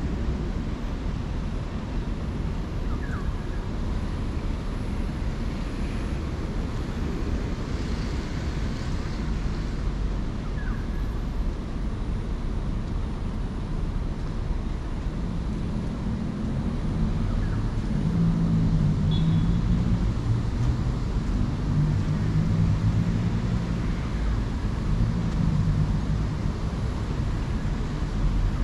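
Steady road-traffic rumble. From about halfway through, a large vehicle's engine drone grows louder.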